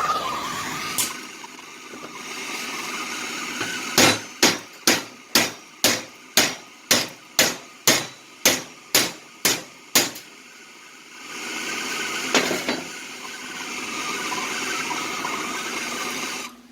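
A hammer striking metal about thirteen times in an even rhythm of roughly two blows a second, between stretches of a steady hiss from a propane torch heating the steel.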